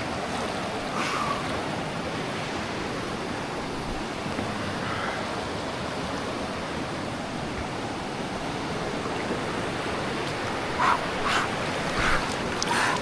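Steady rush of a flowing jungle river, with a few brief louder sounds near the end.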